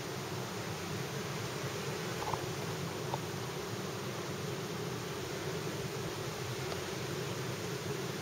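Steady background hiss with a low hum under it and two faint ticks a couple of seconds in.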